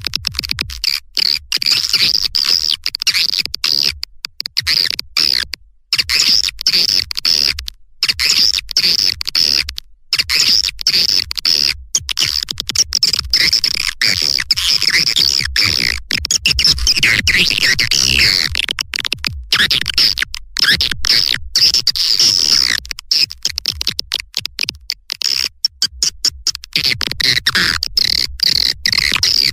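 Recorded swiftlet calls: a dense, continuous chatter of rapid high chirps and twitters. This is a lure sound played to attract swiftlets to a nesting house.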